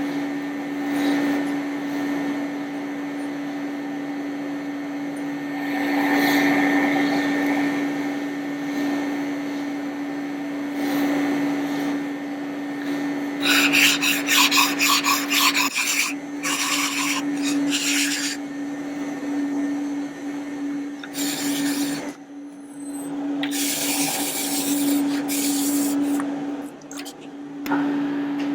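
Kitchen knife blade scraping back and forth on a whetstone, in quick rhythmic strokes in the middle and later stretches, over a steady low hum.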